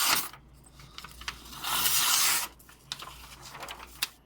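Knife blade slicing through paper in two swishing strokes, one at the start and one about two seconds in, with a few small clicks between. The blade cuts the paper, sharp enough for a paper-slicing test.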